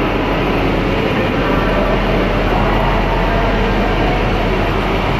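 A regional electric multiple-unit train running slowly along a platform, making a steady, even running noise of wheels and drive.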